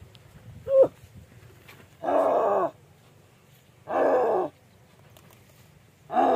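A man in a gorilla costume making loud animal-like calls to scare monkeys off a crop: a short sharp call about a second in, then three calls of about half a second each, falling in pitch, spaced about two seconds apart.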